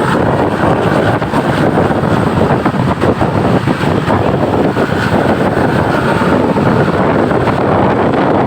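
Loud, steady roadside traffic noise with wind buffeting the microphone; no horn tones are heard.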